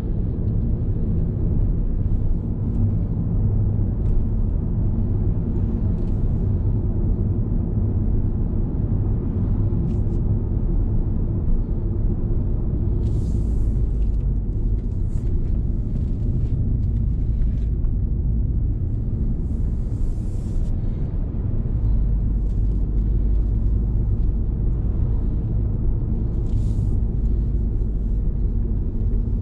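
Steady rumble of a car on the move, engine and tyre noise heard from inside the cabin, with a few brief hisses along the way.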